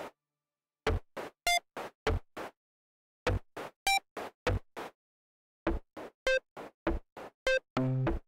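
Electronic sound-design music of short synthesized percussive hits and beeps, in runs of about six at roughly three a second, separated by brief silences. From about halfway in the hits come faster without gaps, and a held low tone sounds near the end.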